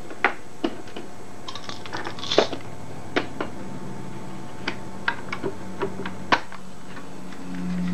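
Scattered light clicks and taps, about a dozen, from hands handling and gripping the case of a 1961 Webcor Microcorder reel-to-reel tape recorder. A louder knock comes about two and a half seconds in and another about six seconds in.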